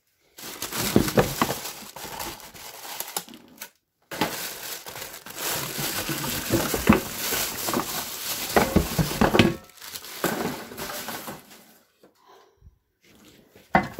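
Clear plastic wrapping and cardboard packing crinkling and rustling as they are handled and pulled out of a shipping box, with many small crackles; it stops briefly about four seconds in and is much quieter from about ten seconds in.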